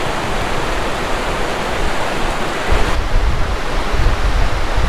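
Steady rushing outdoor noise, with low wind rumble buffeting the microphone from about three seconds in.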